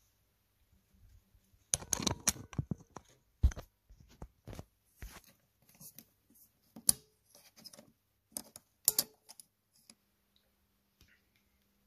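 Small metal parts being handled: an irregular run of sharp clicks, taps and clinks, some ringing briefly, busiest in the first few seconds and dying away after about nine seconds.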